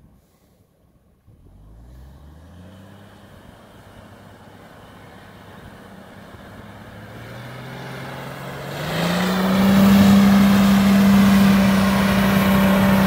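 Mercedes W463 G-Class engine pulling through sand, its pitch rising slowly over several seconds. About nine seconds in it gets much louder and holds a steady high-revving note as the vehicle climbs a sandy slope.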